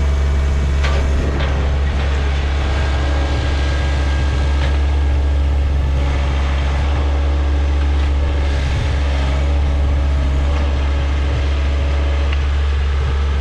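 A motor vehicle's engine running steadily: an unbroken low drone with a few faint clicks.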